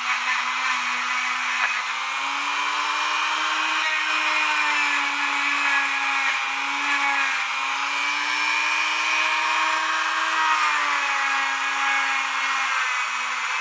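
Small electric power tool motor running steadily, its whine sagging and rising a little in pitch as it takes and loses load, typical of a rotary polisher working brass clock-movement parts.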